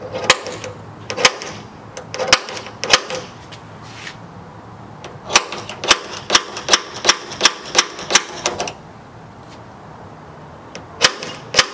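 Sharp metallic taps of a center punch marking the hole centres on a Jeep Wrangler JK's hood. There are four single taps at first, then a quick run of about a dozen, then two more near the end.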